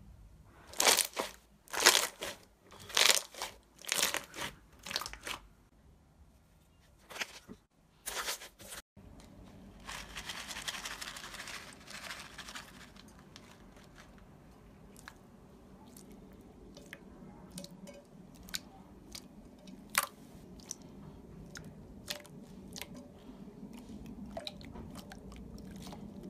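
Slime being pressed and squished by hand: a run of loud, wet crackling pops in the first few seconds, then quieter squelching with scattered clicks and small pops. A brief rushing noise comes about ten seconds in.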